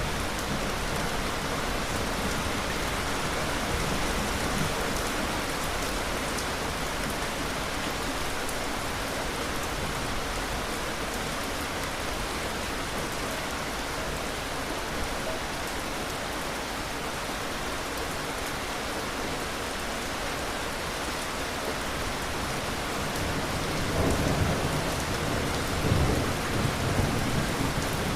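Steady rain with distant thunder rumbling low, the thunder swelling loudest near the end.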